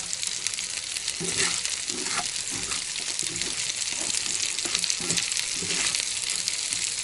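Sliced potatoes and onions sizzling steadily in oil in a frying pan, while a wooden spatula scrapes and knocks against the pan in a run of short strokes as they are stirred and turned.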